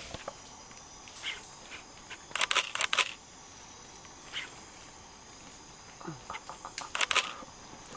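Rainforest insects buzzing steadily, high-pitched, with two bunches of sharp cracking and rustling in the leaf litter and twigs, a few seconds apart.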